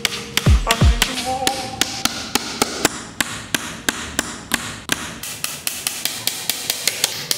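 Small hammer tapping tiny nails into thin wooden strips: rapid light knocks, about four a second. Background music runs underneath, with two falling bass sweeps in the first second.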